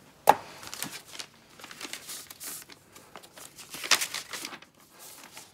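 Paper rustling and crinkling as printed papers are picked up and leafed through, with a sharp knock about a third of a second in and a louder flurry of handling about four seconds in.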